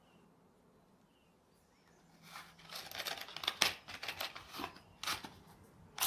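A small cardboard matchbox being handled over the candle bowl: a quick run of dry rustles, scrapes and clicks, starting about two seconds in and stopping near the end.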